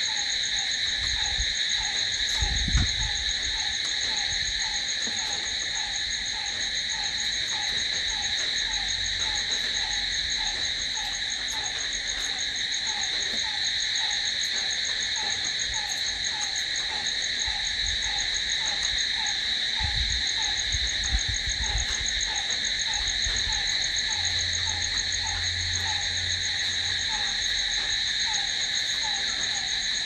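Night chorus of crickets: a continuous high trilling, with a lower, pulsed call repeating about twice a second underneath. A couple of brief low bumps come about three seconds in and again near twenty seconds.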